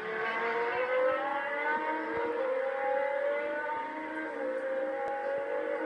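Several racing motorcycles running at high revs as they pass and pull away, their engine notes overlapping and each climbing in pitch, then dropping back as they change up.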